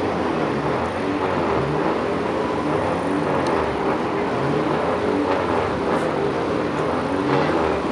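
A field of race cars running on a short oval track, several engines overlapping, their pitch rising and falling again and again as the cars accelerate and lift.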